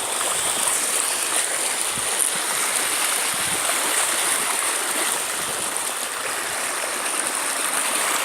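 Floodwater rushing past in a strong current, a steady, even rush of water.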